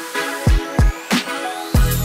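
Electronic background music with a thudding kick drum and a rising synth sweep, then a deep sustained bass that comes in near the end.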